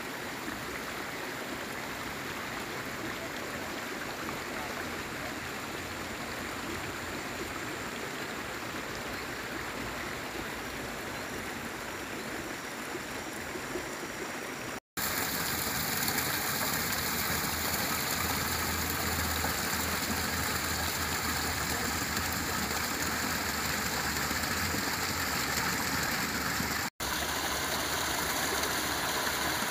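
Steady rush of running water from a small stream spilling down a short waterfall over rocks. It is quieter in the first half, then cuts out for an instant and comes back louder about halfway through, with another split-second dropout near the end.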